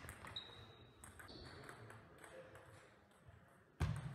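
Table tennis ball clicking off the rackets and table during a rally, with a couple of short high squeaks. A sudden loud thump comes near the end.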